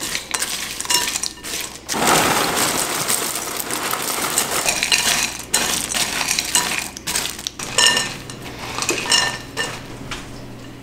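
A spatula stirring nuts and seeds in a glass mixing bowl, with scraping and clinking against the glass. About two seconds in, dry cereal squares are poured in with a dense rushing rattle lasting a few seconds, and then the stirring goes on.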